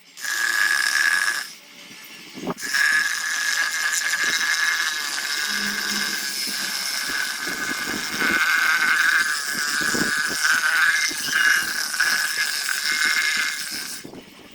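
A power tool running against wood, with a steady high whine over a grinding noise. It breaks off briefly about two seconds in and starts again.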